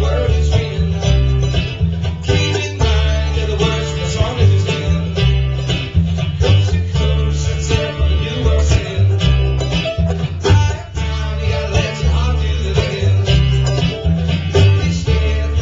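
Acoustic bluegrass string band playing live: a strummed acoustic guitar, an upright bass plucking a steady bass line and a bright picked lead line over them.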